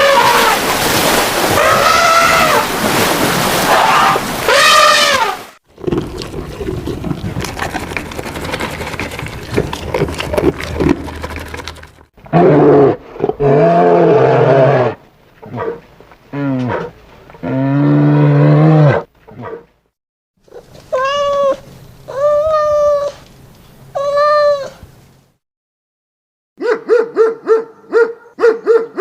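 A run of different animal calls, one after another: loud wavering calls at first, then deep drawn-out calls in the middle, three rising-and-falling calls, and a quick series of short yelps near the end.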